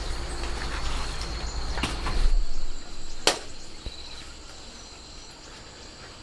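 Insects chirring steadily in the background, with a low rumble in the first couple of seconds and a single sharp click about three seconds in.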